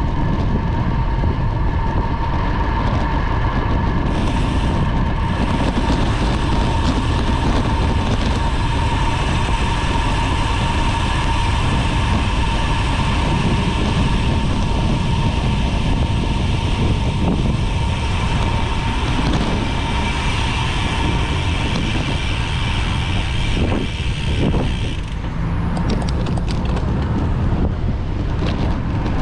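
Wind rushing over the microphone and road noise from a road bicycle riding at speed: a steady, heavy rush with a thin steady whine running through it. A few light knocks come near the end.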